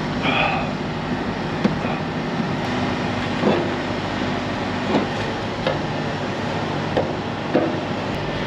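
Steady rumble of an idling heavy truck's diesel engine. Just after the start, a short squeak as a squeegee wipes across the side-mirror glass, then a handful of light knocks about a second apart.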